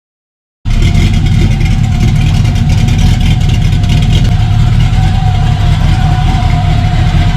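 A vehicle engine running loudly and steadily close to the microphone, starting abruptly about half a second in.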